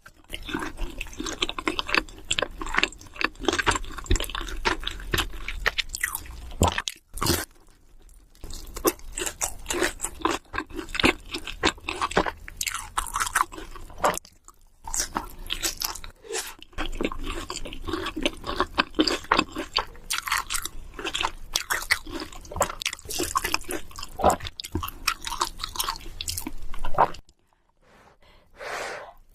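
Close-miked eating: bites into crispy fried chicken crunch and crackle, mixed with chewing and slurping of sauced noodles, in an irregular run with a few short pauses.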